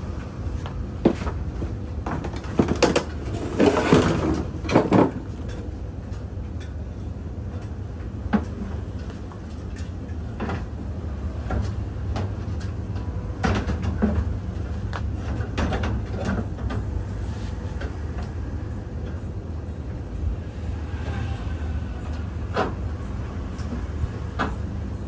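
Sheet-metal knocks and clanks from a commercial clothes dryer's drum and housing being handled during repair, with a cluster of louder bangs a few seconds in and single knocks after that. A steady low machine hum runs underneath.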